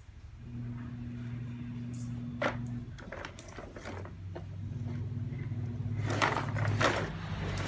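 Hard plastic toy push walker being handled and knocked on a tiled floor: a knock about two and a half seconds in and a cluster of clicks and clatters near the end, over a steady low hum.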